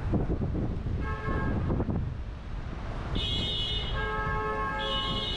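Car horns honking: a short honk about a second in, then longer overlapping honks, one high-pitched and one lower, from about three seconds in, over a low steady rumble.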